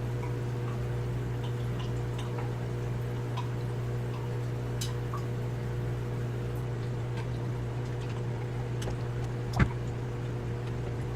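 Steady low hum with small scattered ticks and water sounds from work in an aquarium sump and overflow, and one sharp knock about nine and a half seconds in.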